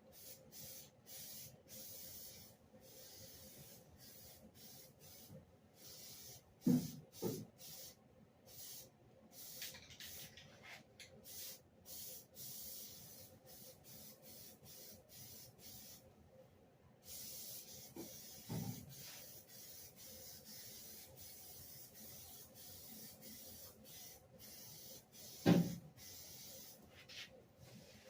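Hissing spray in many short bursts, cutting on and off, with a few dull knocks in between.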